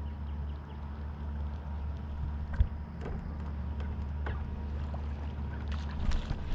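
A small fishing boat's motor giving a steady low hum, with a single knock about two and a half seconds in and a quick cluster of clicks and knocks near the end.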